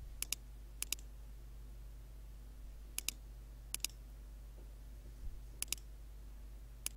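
Computer mouse clicks, six times, each heard as a quick pair of sharp clicks, over a low steady hum.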